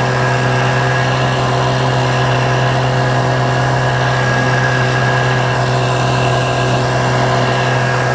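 An 8 hp outboard motor running at a steady speed, pushing an inflatable boat along. It makes a constant, even drone with a strong low hum that does not change in pitch.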